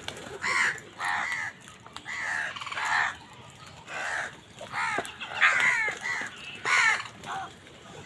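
A flock of house crows cawing harshly and repeatedly while competing for food, about nine calls, some overlapping, with the loudest around the middle and near the end.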